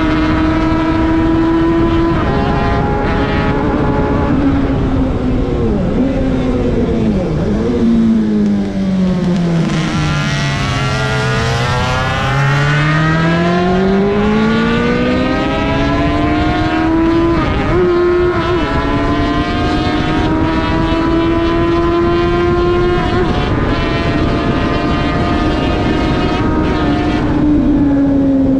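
1970 Honda CB500 Four's air-cooled inline-four engine recorded onboard at racing speed, with wind rush over the microphone. Its high note falls in steps as the bike slows through downshifts, reaching its lowest about ten to twelve seconds in, then climbs again under acceleration, with brief breaks at gear changes after that.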